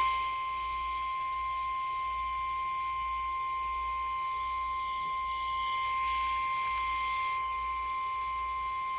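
NOAA Weather Radio warning alarm tone: a single steady tone held for about nine seconds over faint radio hiss, then cut off. It signals that a warning is about to be read, here a tornado warning.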